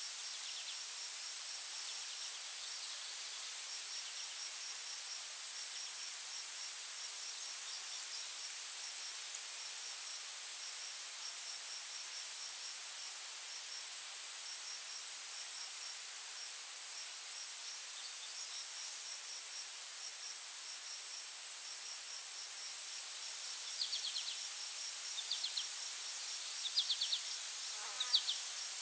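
Steady high-pitched insect chorus with a fast, regular pulsing chirp underneath it. Short sharp chirps join in near the end.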